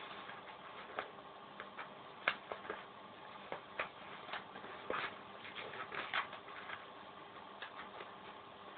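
Sheet of paper being folded and creased by hand: irregular light taps, clicks and crinkles, a few sharper ones in the middle.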